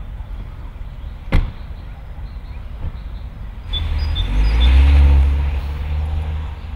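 A car door slams shut about a second in, with a fainter knock a second and a half later; then the Mini's engine revs as the car pulls away, loudest about five seconds in.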